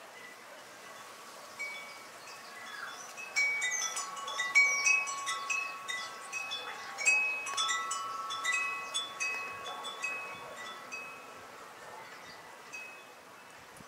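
Wind chimes ringing, struck irregularly at several fixed pitches with each note ringing on. The strikes come thickest through the middle and thin out near the end.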